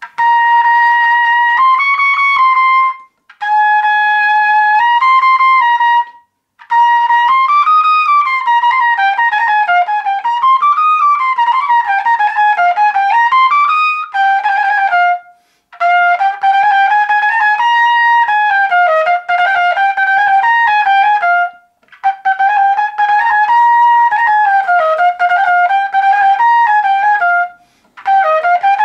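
Unaccompanied trumpet playing a single high melodic line in several phrases, each broken off by a short breath pause.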